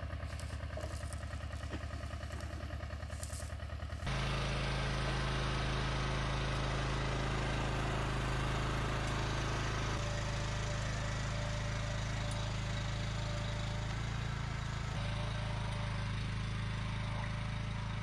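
Small tractor engine running steadily while dragging a fan-type potato digger through the soil; about four seconds in it changes abruptly to the steady, lower hum of a walk-behind two-wheel tractor pulling a potato digger, labouring a little under the load.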